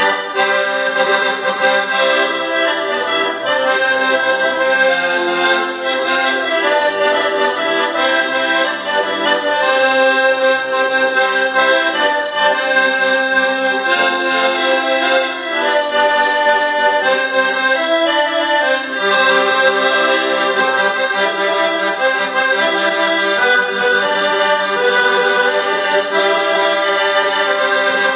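Piano accordion playing a tune solo, several notes sounding together and changing steadily.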